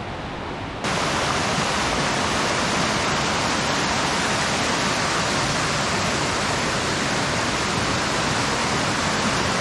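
Fast-flowing river rushing over rocks, a steady rush of water that steps up louder about a second in.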